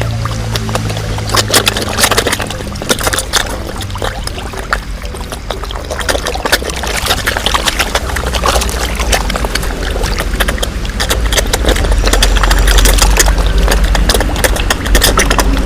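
Koi splashing at the water's surface: a dense run of small, sharp splashes and sloshing water over a low rumble that gets louder in the second half.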